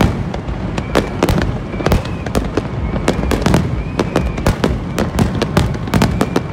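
Fireworks display: rapid, overlapping bangs and crackles of aerial shells, several a second, over a steady low rumble.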